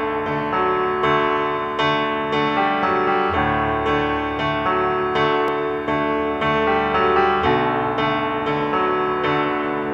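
Instrumental background music on piano, with notes and chords struck at a steady, unhurried pace.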